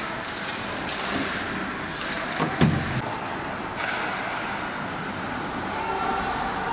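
Ice hockey play in a rink: skates scraping on the ice and sticks clacking, with a heavy thud against the boards about two and a half seconds in.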